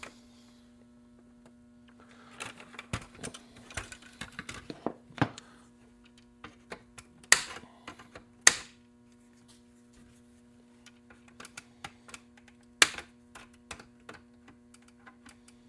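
Scattered sharp clicks and light knocks of a hard plastic RC truck body and small tools being handled on a workbench, three of them louder, over a steady electrical hum.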